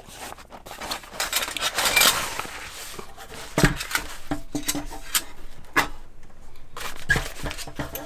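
Fabric carry bag rustling as the metal parts of a Uniflame Fire Grill solo fire pit are pulled out of it. Then come a few sharp metal clinks and knocks as the wire grill net and frame pieces touch each other.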